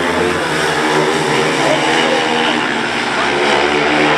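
Several speedway motorcycles' 500 cc single-cylinder methanol engines running hard at high revs as the bikes race around the track, loud and continuous.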